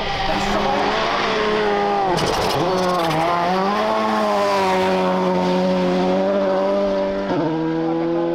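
Volkswagen Polo GTI R5 rally car's turbocharged four-cylinder engine at high revs through a gravel corner. Its note dips and climbs again about two seconds in, with a rattle of gravel, then pulls on steadily, with a gear change near the end.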